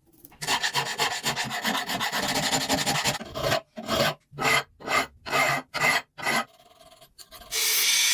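A hand file rasping over metal: a quick run of short back-and-forth strokes, then six slower, separate strokes about half a second apart. Near the end a loud steady noise starts.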